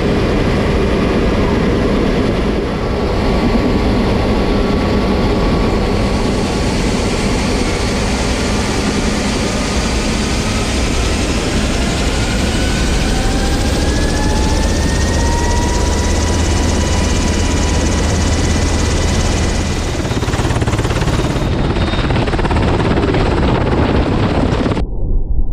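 UH-60L Black Hawk's twin T700 turboshaft engines and main rotor heard from inside the cockpit: a loud, steady noise with a turbine whine that rises in pitch about halfway through as the engines speed up. Near the end the sound switches abruptly to the helicopter heard from outside.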